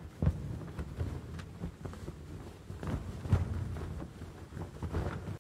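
Cloth flag flapping in strong wind, with irregular sharp snaps of the fabric over a low rush of wind.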